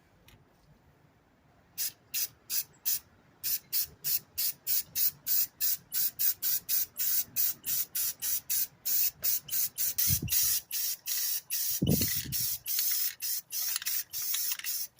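Aerosol spray-paint can sprayed in short hissing bursts, about two a second, that start about two seconds in and run into longer sprays midway, laying down a final coat of hammered grey paint. Two dull knocks come near the end.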